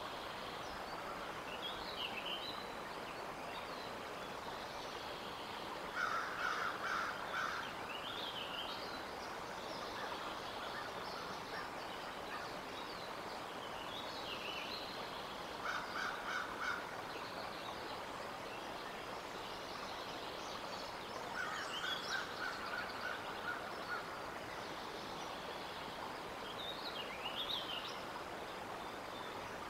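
Wild birds singing and calling at intervals over a steady outdoor hiss, a short call or phrase about every five or six seconds.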